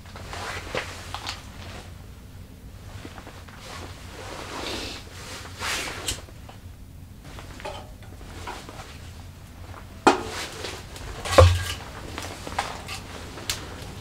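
Rustling and scattered light wooden clicks and knocks as kindling and sticks are handled and set in a small steel wood stove's firebox. Two sharper knocks come about two-thirds of the way through, the second the loudest with a dull thud.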